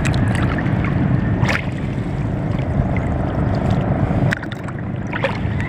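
Small fishing boat's engine running steadily with a low rumble, easing slightly about four seconds in, with a few faint knocks.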